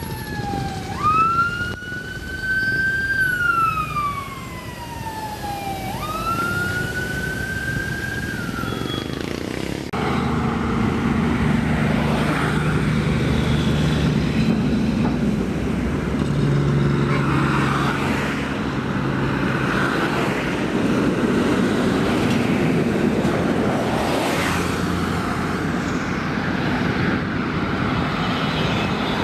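A siren wails, rising and falling several times over an engine running. About ten seconds in it gives way to a heavy diesel truck engine running loudly and steadily.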